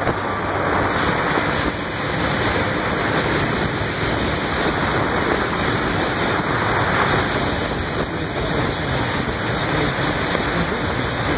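Steady rushing noise of wind and choppy water, with no distinct engine note.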